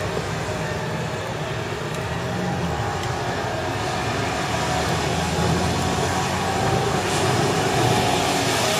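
Toyota Land Cruiser SUV's engine running as it drives across wet tarmac, with the hiss of tyres on the wet road. It grows gradually louder toward the end.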